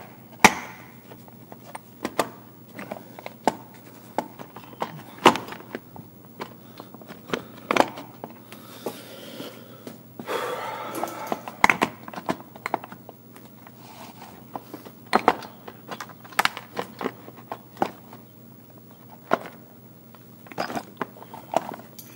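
Irregular clicks, taps and knocks of hard plastic as a Stihl FS 56 RC trimmer's starter and engine housing is handled and fitted together by hand, with a longer scraping rustle about halfway through.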